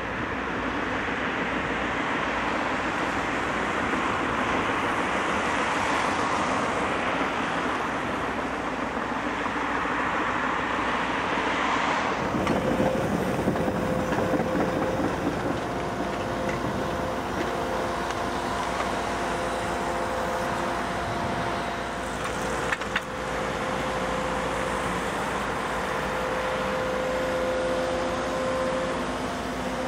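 A New Holland excavator working beside passing road traffic. For about twelve seconds a vehicle's broad rushing noise dominates, then the noise eases to a steady machine sound with a held whine, and a single sharp knock comes about 23 seconds in.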